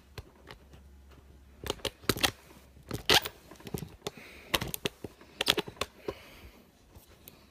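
Irregular light clicks and taps from hands handling the disassembled motocross rear shock and tools, with quiet gaps between them.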